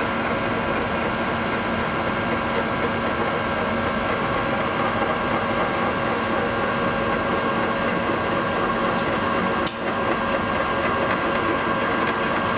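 A machine running steadily, a constant mechanical noise with several steady whining tones over a hiss, broken by a brief dip about ten seconds in.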